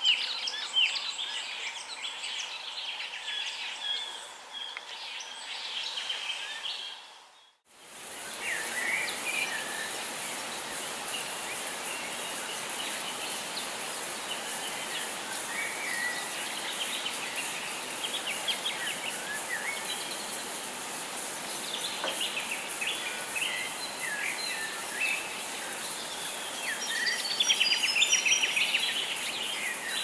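A chorus of forest birds, many calling over one another in short chirps and whistles. About seven and a half seconds in the sound cuts out briefly, then returns with a steady high hiss under the calls; the calls grow loudest near the end.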